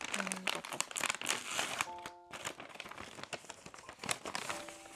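Packaging crinkling and rustling in quick, irregular bursts as a small gift package is unwrapped by hand. Soft background music plays underneath.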